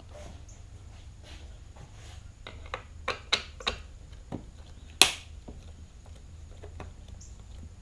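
Clicks and knocks of a screwdriver against the plastic housing of a Black & Decker electric string trimmer being taken apart to reach a hidden screw: a quick run of sharp clicks about three seconds in and one louder knock about five seconds in.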